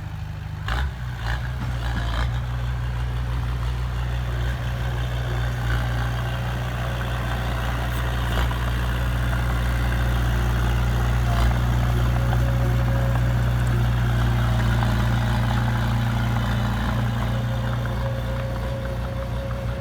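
Heavy earthmoving machine's diesel engine running steadily, with a few knocks in the first two seconds.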